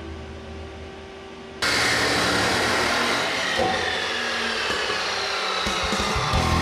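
Abrasive chop saw cutting through 409 stainless steel mandrel-bent exhaust tubing. The cut starts suddenly about a second and a half in and keeps going steadily.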